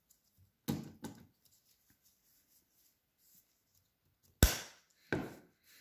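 Clicks of a plastic pump dispenser and its clear flip lid being handled, used for cleaning up: two clicks about a second in, then a sharp snap a little past four seconds in, the loudest sound, and a softer knock soon after.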